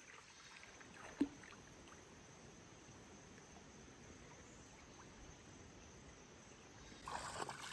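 Faint, steady rush of flowing water from a creek and waterfall, with one short sharp sound about a second in and splashing and voices picking up near the end.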